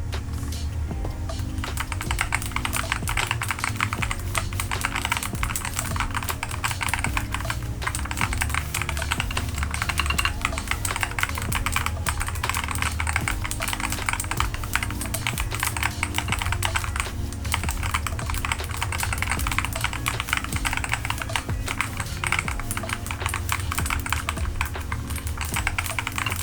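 Continuous fast typing on a keyboard fitted with Kailh magnetic Hall-effect switches: a dense run of keystroke clacks. Background music with a steady low bass runs underneath.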